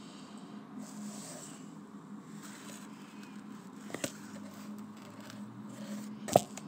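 Handling noise from a phone being moved while filming: rubbing and scraping, a couple of clicks about four seconds in and a sharp knock near the end, over a steady low hum.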